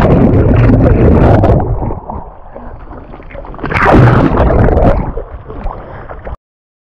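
Sea water rushing and gurgling over a camera held in and just under the water surface, muffled while it is under, with a loud surge about four seconds in. The sound cuts off abruptly near the end.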